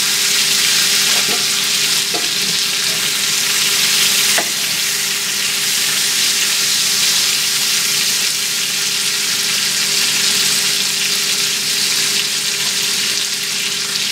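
Sliced onions and red bell peppers sizzling steadily in olive oil in a hot cast iron skillet while being stirred with a wooden spatula. The spatula knocks lightly against the pan a few times in the first several seconds.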